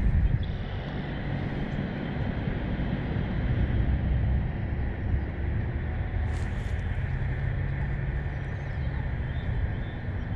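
Steady rushing of river water with an uneven low rumble from wind buffeting the microphone, and a couple of faint clicks.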